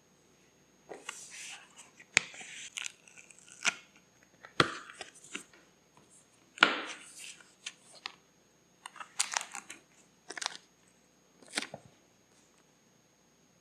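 Paper being handled for journal crafting: a run of short rustling, tearing bursts with sharp clicks in between, starting about a second in and stopping near the end.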